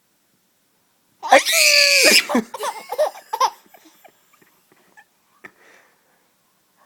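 A young child laughing: one long high squeal starting about a second in, then a few shorter bursts of giggles that fade into soft breaths.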